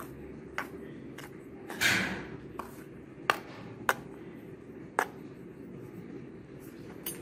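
Metal spoon stirring a dry flour mix in a bowl, clinking against the bowl about eight times at irregular intervals, the loudest clink with a short scrape near two seconds in.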